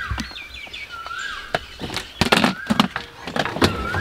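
A bird repeats a short rising call about once a second, with some higher twittering near the start. Over it come sharp knocks and clatters, loudest a little past the middle, as rice is scooped from a plastic tub into plastic bowls.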